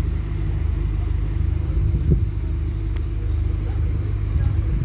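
Steady low rumble of a running vehicle engine, with a brief thump about two seconds in.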